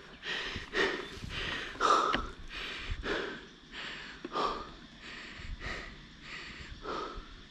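A man panting hard, short breaths coming about two a second, out of breath from climbing a tree.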